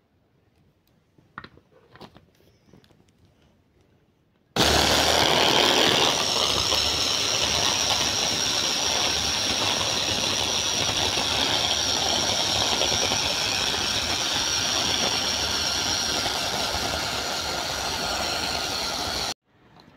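Electric hand blender's motor running on its chopper bowl attachment, chopping pieces of orange, grapefruit and apple into pulp. A few faint clicks as the lid goes on, then the motor starts suddenly about four and a half seconds in, runs steadily with a high whine for about fifteen seconds, and cuts off suddenly just before the end.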